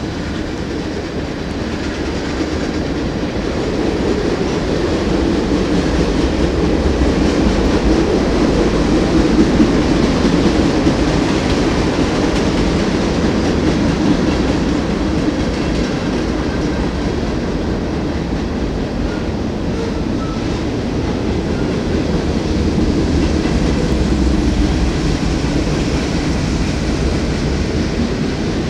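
Freight train rolling steadily past: tank cars and, near the end, covered hopper cars, their steel wheels rumbling and clattering on the rails. It is a little louder about ten seconds in.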